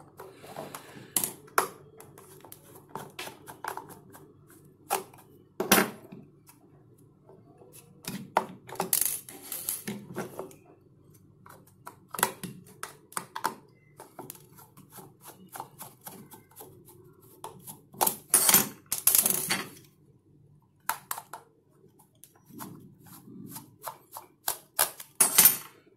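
A small precision screwdriver turning four screws out of a mini speaker's clear plastic housing. Irregular small clicks and ticks of metal on plastic, with a few short scratchy clusters as screws work loose.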